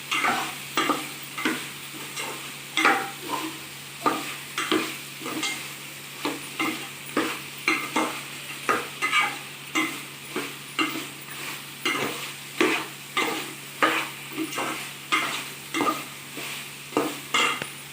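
A utensil stirring and scraping chicken pieces coated in chili powder and ground spices around a hot oiled pan, a scrape every half second or so, over a continuous sizzle of frying.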